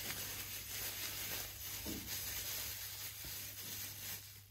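Clear plastic bag crinkling and rustling as hands squeeze and knead marinated goat meat inside it, working the marinade through the meat.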